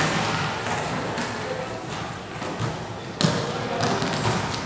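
A volleyball rally in an echoing sports hall: sharp slaps of hands striking the ball at the start and again about three seconds in, with players' voices calling.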